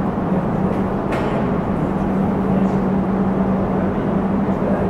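Steady machinery hum: an even noise with a constant low drone, unchanging throughout, as the large ring-shaped rotating fixture turns slowly.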